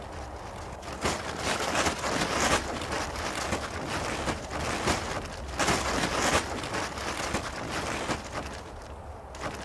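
Plastic sheeting crinkling and rustling in irregular bursts as it is handled and blown about, over a steady low wind rumble.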